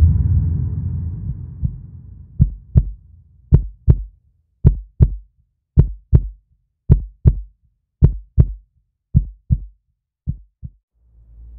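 Heartbeat sound effect: eight lub-dub double thumps, about one a second and evenly spaced, the last ones fainter. Before it, a whoosh dies away over the first two seconds.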